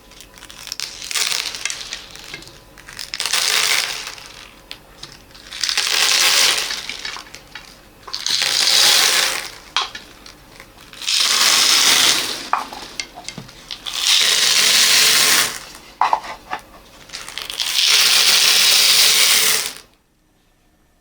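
Small beads pouring and rattling down in repeated pours, about seven of them, each a second or two long with quieter gaps, then a drop to near silence near the end.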